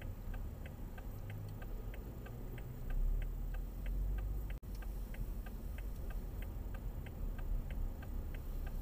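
Car turn-signal indicator clicking steadily, a quick even tick-tock, over the low hum of the car moving slowly.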